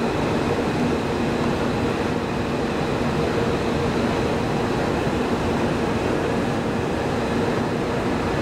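Airbus A320's twin IAE V2500 turbofan engines at takeoff thrust during the takeoff roll: a steady jet rumble with a few faint steady tones in it.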